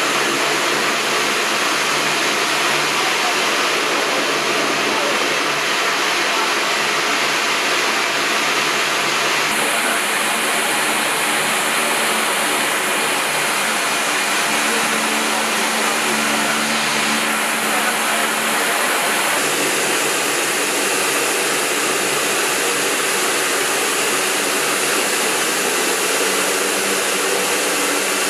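Steady engine and airflow noise of a military transport aircraft heard from inside its cockpit, with a low hum of a few steady tones. The noise changes abruptly a few times partway through.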